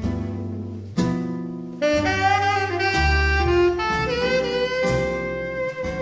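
Jazz combo music: a tenor saxophone plays a melodic line, then holds one long note from about four seconds in, over double bass, piano and drums.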